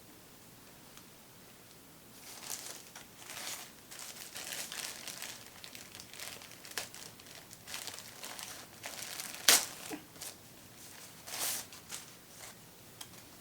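Crinkling and crumpling of a packaging bag being handled and pulled open, in irregular bursts with a sharp crackle about nine and a half seconds in.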